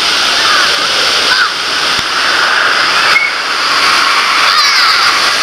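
Water rushing steadily down water slides and pouring into the pool, a dense even hiss, with faint short calls over it now and then.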